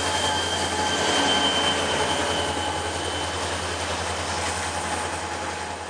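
Freight train of loaded rail gondolas rolling past close by: a steady rumble and rattle of steel wheels on the rails with a thin high wheel squeal over it, fading toward the end.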